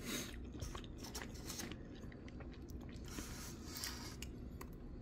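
Faint chewing and mouth noises of people eating, with scattered small clicks.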